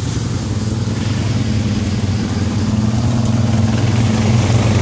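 Arctic Cat 1000 XT ATV's V-twin engine idling steadily close by, slowly getting a little louder.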